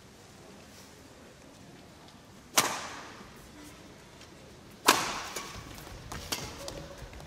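Badminton rackets striking a shuttlecock in a rally. There are two sharp, echoing cracks, about two and a half seconds in and just before five seconds, then quicker, lighter hits near the end.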